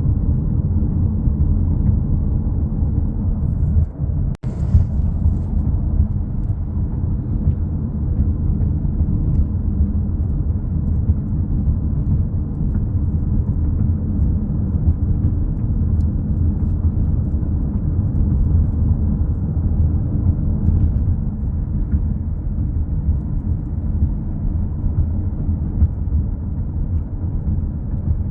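Strong storm wind buffeting the microphone, a steady low rumble.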